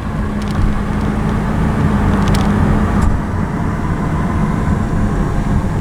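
A car driving, with steady engine and road rumble and a low hum heard from inside the cabin.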